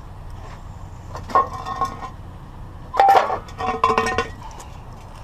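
Metal scrap clanking and rattling as pieces are pushed and set in place, in two bursts of clatter with a ringing tone, about a second in and again about three seconds in.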